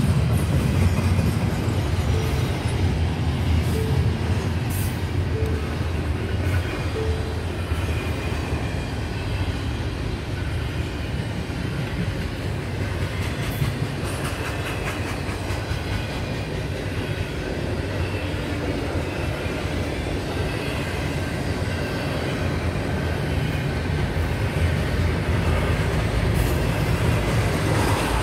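Double-stack intermodal freight train rolling past: a steady rumble of steel wheels on rail with clickety-clack as the well-car trucks cross rail joints.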